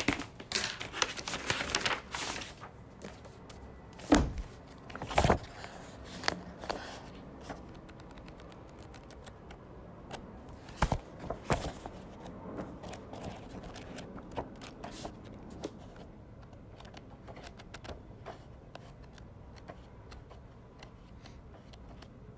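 Paper rustling, crinkling and tearing as a sealed bid envelope is opened and its pages handled, with scattered clicks and a few sharper knocks, the loudest about four seconds in and others around five and eleven seconds.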